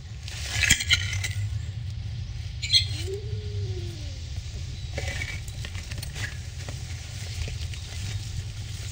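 A kitten gives one drawn-out mew about three seconds in, its pitch rising and then falling. A steady low rumble runs underneath, with a few brief rustles and clicks in the first three seconds.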